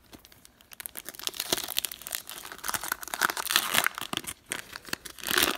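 Foil Pokémon trading-card booster pack wrapper crinkling and crackling as it is handled and torn open, loudest about three to four seconds in and again near the end.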